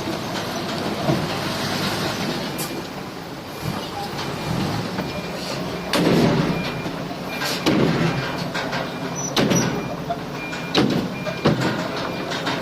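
Heavy earthmoving machinery running steadily with a diesel drone, with several sharp metallic clanks on top. The loudest clank comes about six seconds in.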